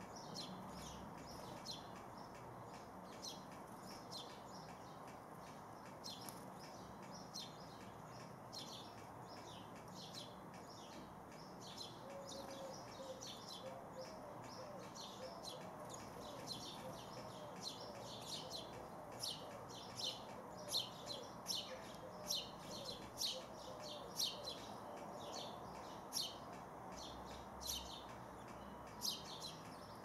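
Sparrows chirping over and over in short, quick high notes, coming thicker and louder in the second half.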